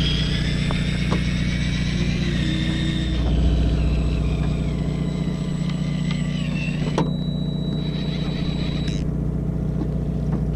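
Fishing boat's engine running with a steady low hum. Over it, a high whine sliding slightly down fades out after about three and a half seconds. About seven seconds in there is a sharp click, then a steady high tone for about two seconds.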